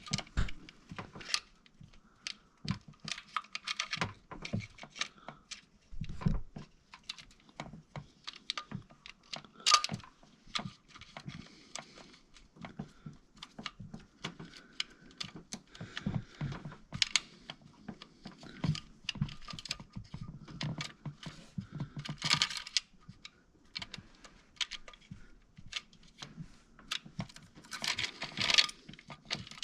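Irregular light clicks and rattles of a timing chain and chain guide being handled and worked into place by hand on a 2.4-litre four-cylinder engine, with a few louder clusters of clatter.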